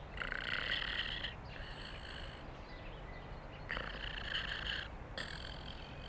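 A cat's sound effect in four short bursts, each lasting about a second or less, with short gaps between.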